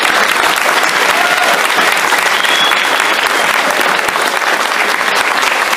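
Audience applauding: dense, steady clapping from a full room.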